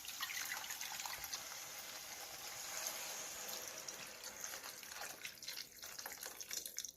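Sliced okra sizzling in hot oil in a pan: a steady hiss with many small crackles as the okra fries.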